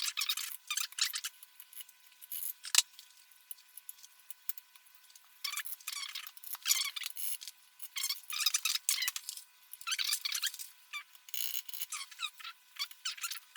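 Plastic keycaps clicking and clattering in repeated bursts as they are handled and pressed onto a mechanical keyboard's switches, with one sharper click about three seconds in. The sound is thin, picked up by a camera's built-in microphone.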